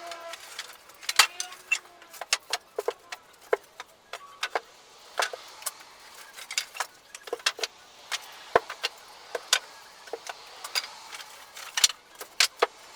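Pallet wood boards knocking and clattering against each other as they are laid onto a wood rack, a long run of sharp, irregular knocks.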